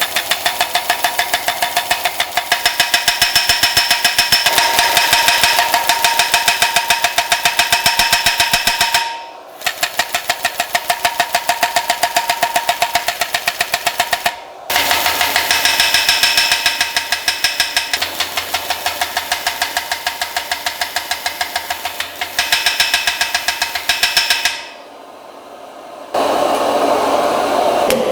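A machine running with a fast, even knocking rhythm and a ringing metallic tone, stopping briefly twice and then giving way to a steady rushing noise near the end.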